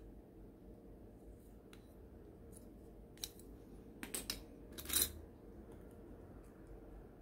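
Grey plastic parts of a Zvezda 1/35 model kit clicking and clattering as they are handled and set down on a cutting mat: a few sharp clicks about three and four seconds in, the loudest clatter about five seconds in.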